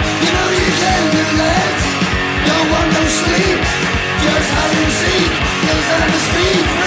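Loud rock music with guitars, a steady drum beat and a singing voice.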